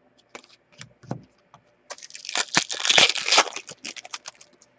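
A few small clicks, then a trading-card pack's wrapper crackling as it is torn open, loudest two to three and a half seconds in, then a few last crinkles.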